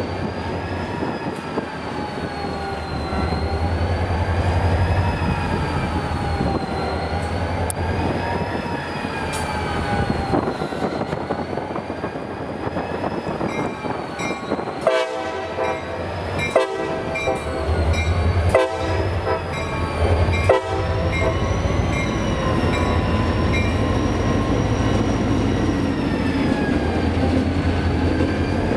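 A train running by with a steady low rumble and high, wavering wheel squeal. A stretch of rapid repeated clicking and knocking comes through about halfway.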